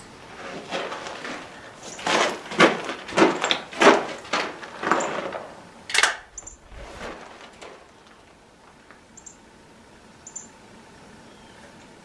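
Hatfield .410 single-shot break-action shotgun being handled and loaded: a run of loud knocks and rattles, then one sharp metallic click about six seconds in, followed by a few faint ticks.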